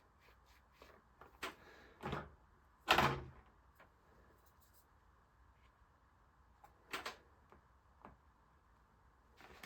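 A few short knocks and clunks of objects being handled and set down on a work surface, the loudest about three seconds in, with quiet gaps between them.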